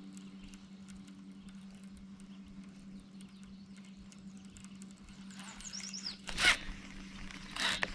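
A steady low hum, then two short zipping rushes near the end, typical of fishing line paying out from a reel on a cast.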